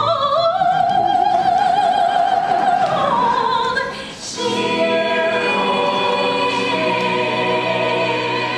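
Live musical-theatre chorus singing a slow song with a long held note that steps up in pitch. After a brief break about four seconds in, the full ensemble sustains a chord.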